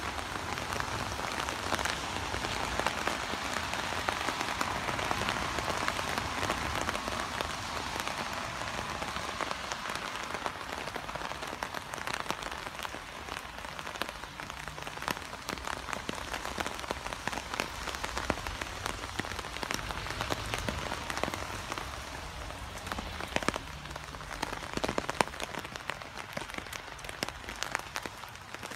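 Moderate rain falling steadily, with many separate drop hits on nearby surfaces.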